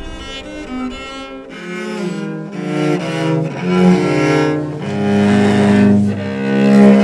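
Viola playing slow, sustained bowed notes, with lower notes coming in about a second and a half in and the sound swelling louder toward the end.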